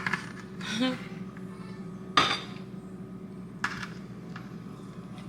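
Dishes and kitchen utensils being handled: a few separate clinks and knocks, the loudest a little over two seconds in, over a steady low hum.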